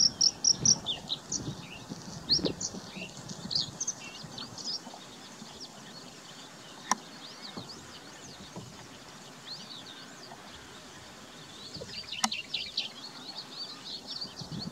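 Small birds chirping and twittering in many quick short calls, thick in the first few seconds and again near the end, over a low rumble at the start. A sharp click about halfway through and another near the end.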